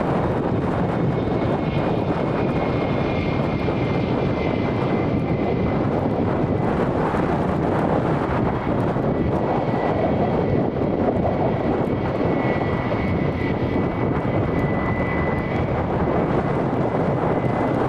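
British Airways Airbus A319 jet engines running, a steady loud rush with a thin high whine that drifts slightly lower.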